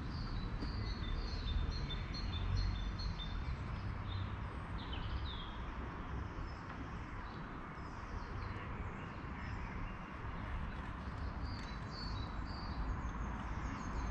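Wild birds singing: quick strings of short high chirps and trills through the first five seconds, and again near the end, over a low steady rumble.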